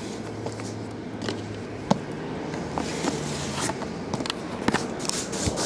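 Shrink-wrapped cardboard hobby boxes being slid out of and shifted around a stack, with scraping and a series of short knocks and taps, over a faint low hum.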